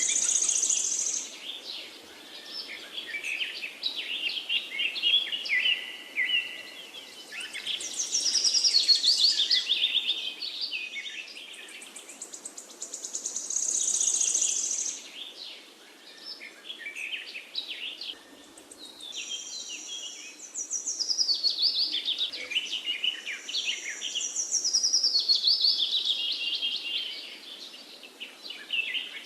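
Songbirds singing: high, trilling phrases that slide downward, repeated every few seconds, over a faint steady hiss.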